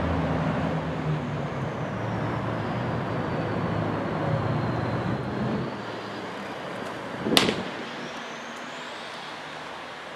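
Steady low rumble of road traffic that drops away about six seconds in. A little over seven seconds in comes a single sharp pop: a fastball smacking into the catcher's leather mitt.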